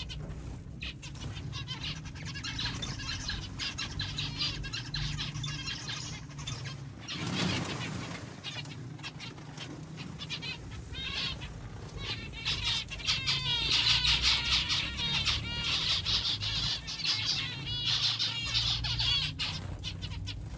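A flock of zebra finches chirping and calling with many short, rapid notes, busiest and loudest in the second half, mixed with wing flutters. A low, steady hum runs underneath.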